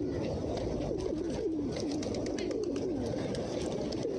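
A flock of pigeons cooing, many low, wavering coos overlapping without a break, with scattered short clicks among them.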